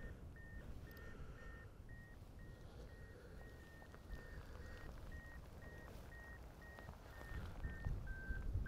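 Handheld terrier locator receiver held to the ground over a fox earth, beeping a thin steady tone about twice a second as it picks up the collar transmitter of the dog working underground; the last beeps come slightly lower in pitch. A low rumble grows louder near the end.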